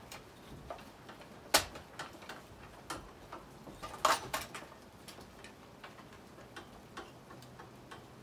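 Light clicks and knocks of plastic and metal parts as a new Coocher 62cc chainsaw's side plate is worked into place over the bar and chain brake. Two sharper knocks stand out, one about a second and a half in and a short cluster around four seconds in.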